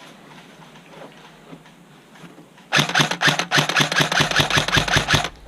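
Airsoft electric rifle, a KWA VM4-A1, firing a rapid string of shots, about seven a second, each shot a sharp mechanical click; it starts about halfway through, runs for about two and a half seconds and stops shortly before the end.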